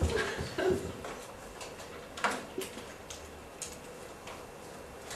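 Quiet classroom with scattered small clicks and knocks at uneven intervals, from pens and desks as pupils write, the strongest at the very start and about two seconds in.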